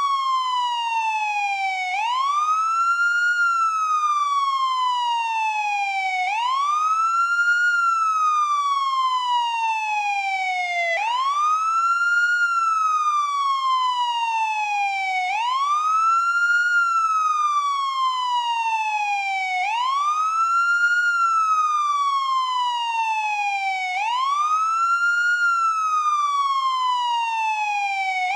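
American police car siren on its wail tone: a single rising-and-falling tone that climbs quickly, then sweeps slowly down, repeating about every four and a half seconds.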